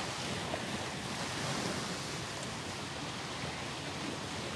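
Shallow sea water lapping and washing at the shore in a steady rush, with wind on the microphone.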